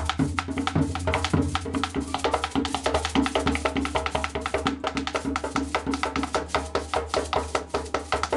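Background music with a fast, steady percussion beat over a bass line.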